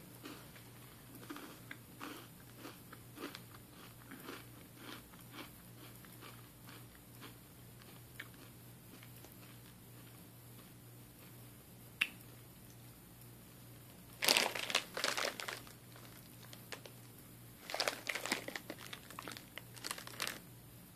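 A person chewing crispy candy-coated chocolates (crispy s'mores M&Ms), with soft crunches through the first several seconds. Later come two louder stretches of crunching and crinkling.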